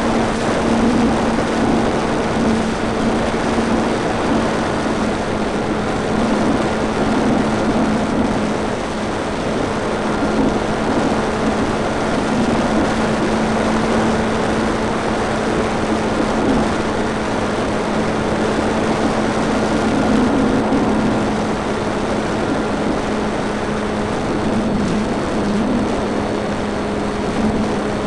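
Multiplex FunCub RC model plane in flight, heard from a camera on board just behind the propeller: the electric motor and propeller hum at a steady pitch under loud rushing wind.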